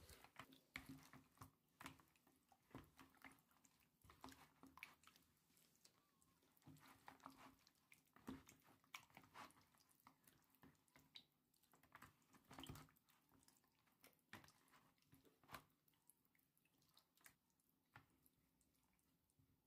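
Faint, irregular wet squelching and smacking of hands mixing raw chicken pieces in a wet egg marinade in a plastic bowl.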